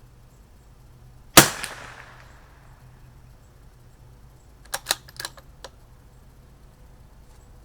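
A CZ 457 bolt-action .22 LR rifle fires a single shot about a second in, with a short echoing tail. About three seconds later comes a quick run of sharp metallic clicks as the bolt is worked to eject the case and chamber the next round.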